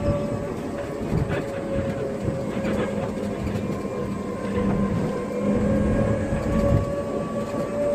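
Electric tricycle riding along a road, heard from inside its cab: a steady motor whine over road rumble, with scattered rattles and knocks from the cab.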